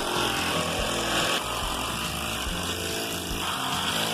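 Background music with changing notes, cut in and out abruptly.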